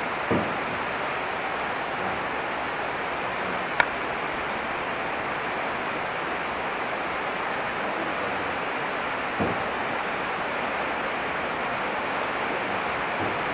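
Heavy rain falling outside, a steady hiss heard from inside the building. A sharp click comes about four seconds in, and soft knocks come near the start and about nine seconds in.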